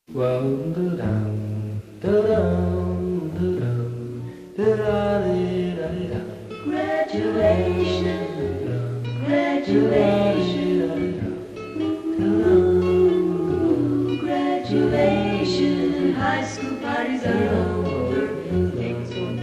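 1959 pop vocal-trio record: soft close-harmony singing by male and female voices over a gentle orchestral backing with a low bass line.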